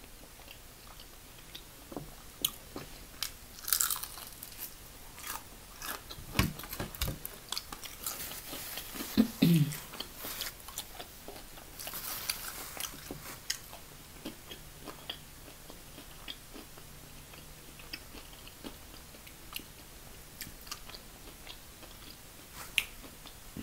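Close-up crunching and chewing of crispy fried chicken wings: irregular crisp bites and chewing crackles, heaviest in the first half and sparser near the end.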